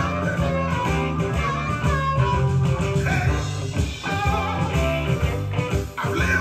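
Band music with guitar and a strong bass line, played back from cassette tape on a Sony TC-K777ESII deck.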